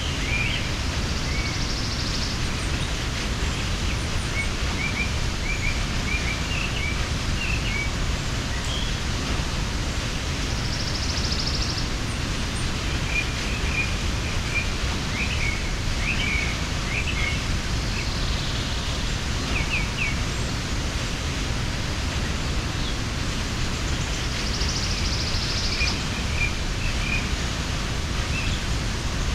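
Steady rushing of a mountain waterfall, with small birds chirping on and off over it and a short buzzy trill coming a few times.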